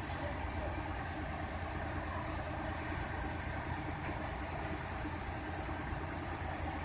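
Heavy diesel engine of a large mobile crane running steadily.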